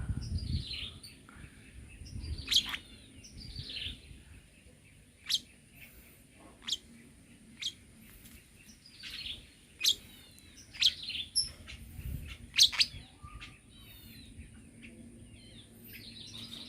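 Tame pet lovebird chirping: a string of short, shrill calls, many falling in pitch, with a few sharp single chirps standing out as the loudest.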